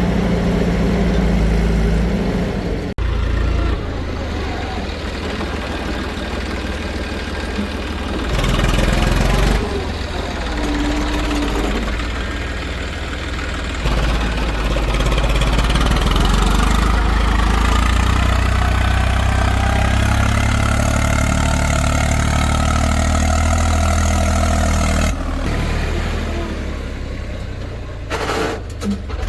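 Heavy diesel machinery engines running and labouring at varying speeds, with abrupt changes in pitch and loudness several times where separate clips are cut together.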